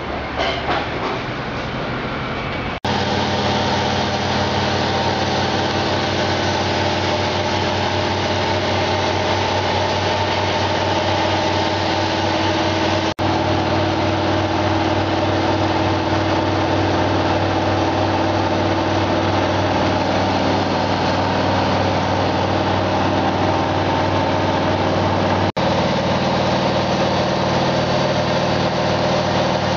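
A steady mechanical hum of several held tones, like a motor or engine running evenly. It breaks off for an instant about 3, 13 and 25 seconds in.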